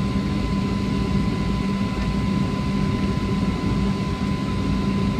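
Steady cabin noise inside a Boeing 757-300 airliner on its descent: the drone of the jet engines and rushing airflow, with a low steady hum and a faint thin whine above it.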